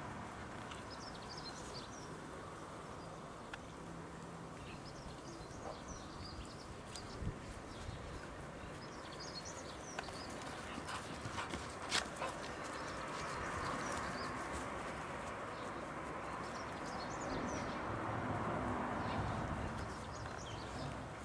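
Tibetan mastiff puppies playing together, with occasional small dog noises, over scattered short high-pitched chirps. A single sharp click about twelve seconds in is the loudest sound.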